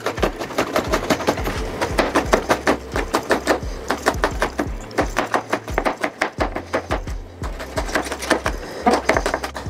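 Chef's knife finely chopping green chillies on a wooden cutting board: a rapid, steady run of knife strikes on the board, several a second.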